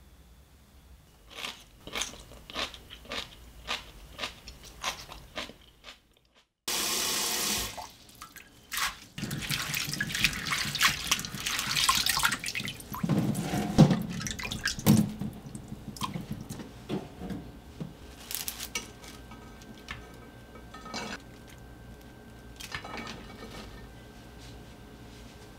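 Soybean sprouts being washed by hand in a bowl of water: splashing and running water as handfuls of wet sprouts are lifted and dropped back in. Before this come light, evenly spaced clicks as the sprouts are handled with chopsticks, and near the end there are quieter rustles of the wet sprouts in a bowl.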